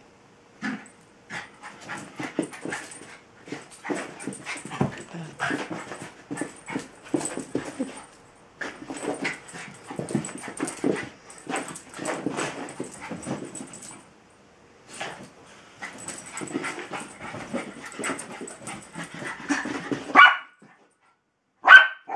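Two terriers, a Jack Russell and a Welsh terrier, in rough play: quick runs of whining and yipping, broken by a couple of short pauses, with two sharp yips or barks near the end.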